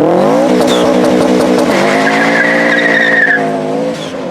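Subaru Impreza boxer engine revving up as the car pulls away, then holding a steady pitch. Its tyres squeal for about a second and a half in the middle.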